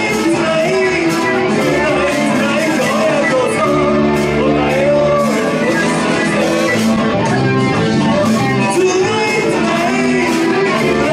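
A live rock band playing a Japanese rock kayō cover, with electric guitar and a steady drum beat.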